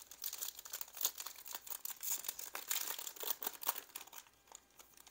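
Foil wrapper of a Panini Illusions basketball card pack being torn open and crinkled by hand: a dense crackle of small tears and crinkles that thins out near the end.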